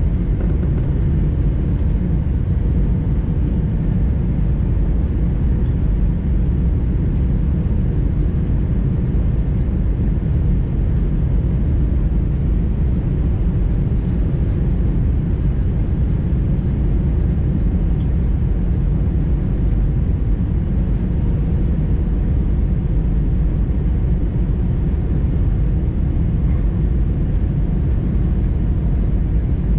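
Steady low rumble of cabin noise inside an Airbus A319-100 airliner in flight, from its engines and the airflow, with a faint steady hum.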